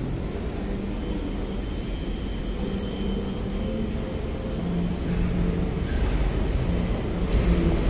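Low, steady rumble on a light-rail station platform, growing louder over the last few seconds as an LRT train approaches.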